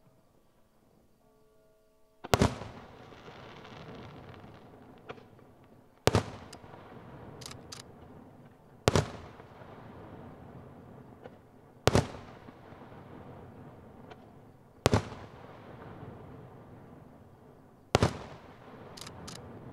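Aerial firework shells bursting one at a time: six loud bangs about three seconds apart, each followed by a long rolling echo, with a few faint crackles in between.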